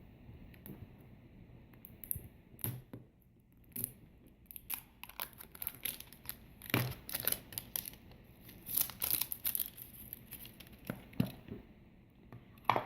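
Plastic packaging crinkling and tearing in irregular sharp crackles as a small toy package is wrestled open.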